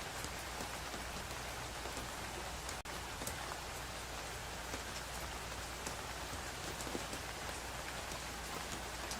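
Steady rain falling, an even hiss with scattered individual drop ticks, briefly cutting out for an instant about three seconds in.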